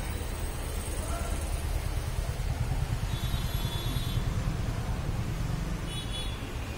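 A steady low background rumble, with a few faint high tones about three seconds in and again near the end.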